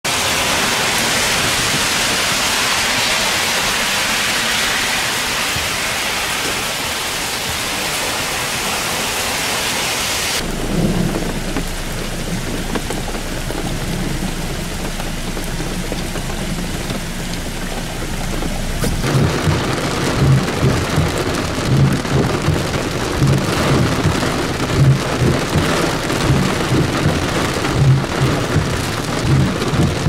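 Heavy thunderstorm rain pouring steadily, loudest for about the first ten seconds, then dropping off suddenly to a duller, quieter rain. From about nineteen seconds in, low thumps come roughly once a second over the rain.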